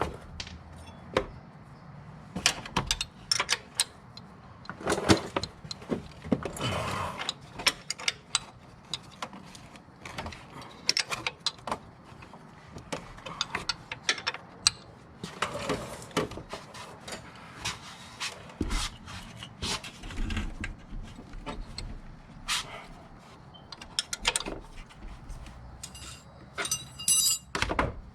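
Hand tools and metal parts clinking and knocking irregularly during repair work, with a few short metallic rings near the end.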